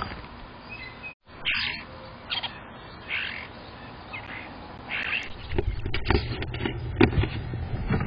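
European starling calling at a wooden nest box: a string of short, harsh calls in the first five seconds. From about five and a half seconds these give way to a quick run of knocks and scrapes over a low hum.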